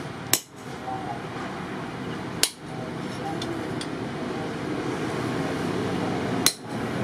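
Blacksmith's hammer striking a steel anvil three times, sharp ringing clinks spaced a couple of seconds apart, over a steady rushing noise that grows slightly louder.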